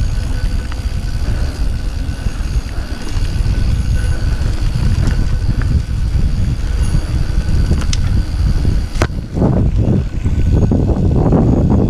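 Mountain bike ridden fast down a dirt singletrack, heard from a handlebar-mounted camera: a steady low rumble of wind on the microphone and tyres on dirt. A few sharp knocks from the bike are heard, and the rattling gets rougher and louder near the end.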